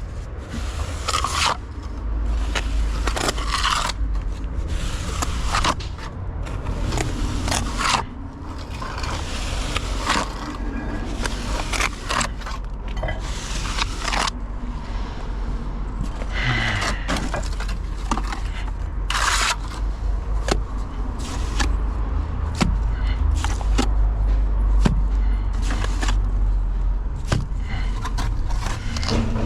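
Irregular scraping and knocking of manual construction work, with repeated short scrapes and hits over a steady low rumble.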